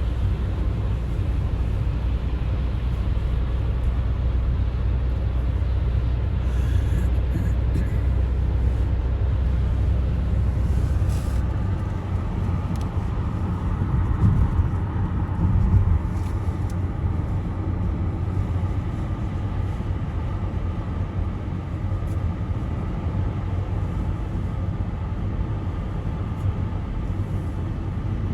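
A car driving on a snowy highway: steady road noise of tyres and engine with a deep rumble that eases about twelve seconds in, and two brief louder bumps a little later.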